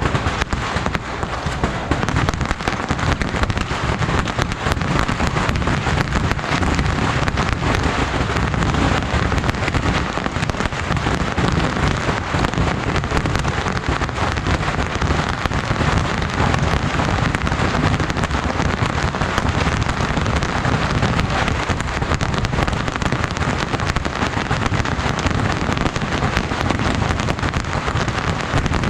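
Yanshui beehive-rocket fortress firing: thousands of bottle rockets launching and popping at once, so fast that the pops merge into one dense, unbroken crackle.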